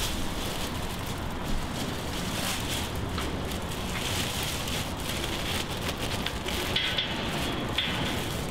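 Crinkling and rustling of a thin disposable plastic palpation sleeve as it is pulled up onto an arm, over a steady hiss.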